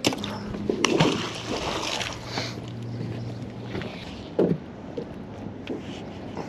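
Wind on the microphone and water noise as a magnet-fishing magnet is tossed out from a small boat on its rope. There are a couple of sharp knocks in the first second and a single thump past the middle.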